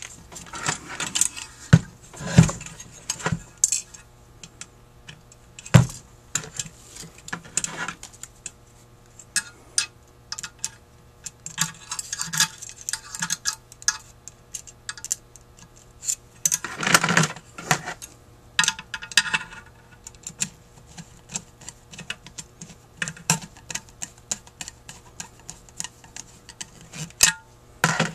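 Metal clicks, knocks and scraping as a carburetor casting and a screwdriver are handled and turned on a workbench, with the jets being screwed in. Irregular small clatter with a few sharper knocks, the loudest about two and six seconds in.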